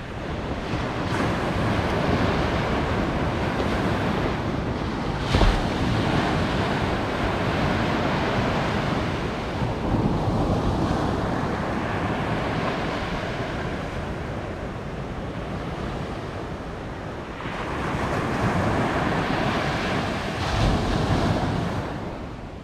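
Small waves breaking and washing up a sandy beach, the surf swelling and easing every few seconds, with wind buffeting the microphone. A single sharp knock about five seconds in.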